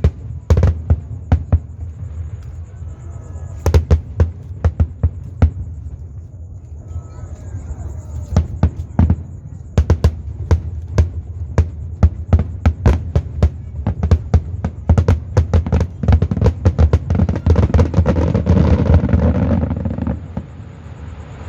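Fireworks shells bursting: a long run of sharp bangs over a low rumble, coming faster from about eight seconds in and building to a dense crackling wash before dying down near the end.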